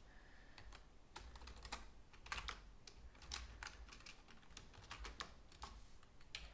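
Computer keyboard being typed on: faint, irregular keystrokes in short runs with pauses between them.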